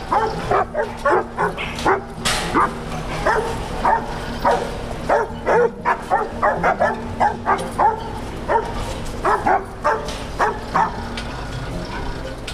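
Kennel hunting dogs barking and yipping repeatedly, several voices overlapping in short, irregular barks over a steady low hum.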